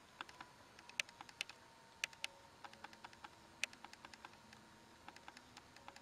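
Woodburning pen's hot skew tip stroking short texture lines into tupelo wood: light, sharp ticks and scratches, irregular at about four a second, over a faint steady tone.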